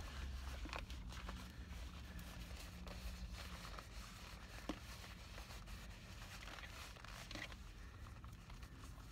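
Black leather gloves squeezed and rubbed between the hands: a faint crinkling, scraping rustle with a few sharp clicks scattered through it.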